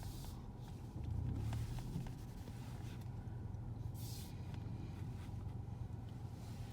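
Steady low rumble of a car's road and engine noise heard from inside the moving car.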